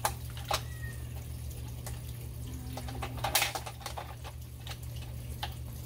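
Scattered plastic clicks and knocks from an aquarium canister filter's lid and handle being worked loose, a stronger cluster of knocks about three seconds in, over a steady low hum. The lid is held on by water pressure and won't come off easily.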